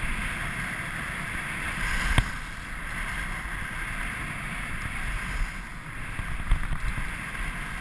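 Skis sliding over firm groomed snow, a steady scraping hiss, with wind buffeting the microphone. A single sharp knock about two seconds in.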